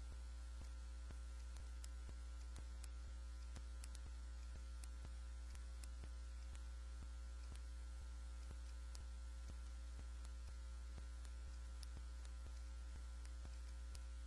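Steady low electrical mains hum with a few faint steady tones above it and faint, scattered clicks; no speech.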